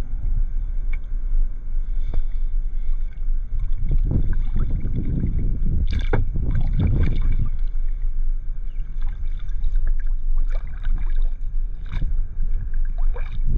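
Wind buffeting the microphone with a steady low rumble, over the water splashes of kayak paddle strokes, a few of them sharper than the rest.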